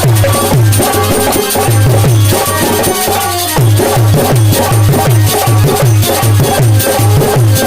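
Instrumental interlude of folk music: a hand drum plays a fast run of deep bass strokes, each dropping in pitch, with shaken jingling percussion and a melody line above. The drumming breaks off briefly about three seconds in, then picks up again.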